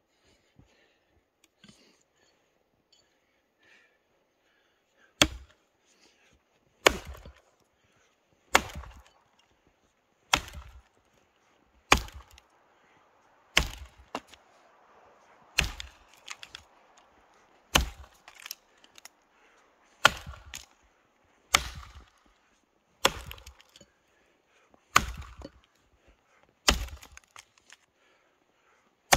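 Tuatahi work axe chopping into an old, semi-dry, partly frozen sugar maple log: thirteen sharp strikes, one every one and a half to two seconds, starting about five seconds in.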